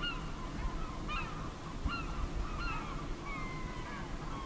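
Birds calling: many short pitched calls, several a second and overlapping, over a steady low rumble.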